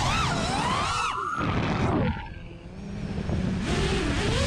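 6S FPV quadcopter's brushless motors and propellers whining, the pitch swinging up and down with throttle. The sound drops away briefly about two seconds in as the throttle is cut, then climbs again in rising sweeps, over low wind rumble on the onboard microphone.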